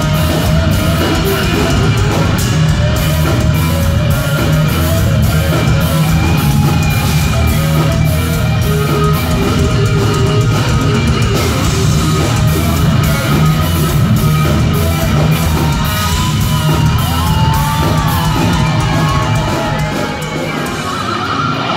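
Thrash metal band playing live and loud: distorted electric guitars and bass over fast drumming, with bending lead lines in the second half. The fast cymbal and drum strokes drop out near the end.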